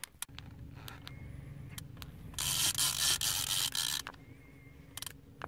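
Fishing reel's drag paying out line with a loud rasping buzz for about a second and a half as a big wels catfish pulls down against the bent rod. A steady low hum runs underneath, with a few scattered clicks.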